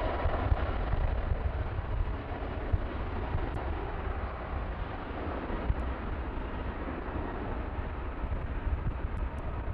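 Jet noise from an Airbus A321neo's CFM LEAP-1A turbofans as it rolls along the runway: a steady, even rush with a deep low rumble underneath.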